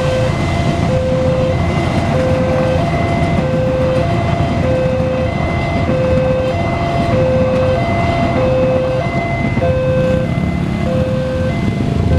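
Level-crossing warning signal ringing: a short electronic tone repeating evenly, roughly every three-quarters of a second. Under it is the low rumble of a passenger train passing and motorcycles idling, and the engines pick up near the end as the barriers lift.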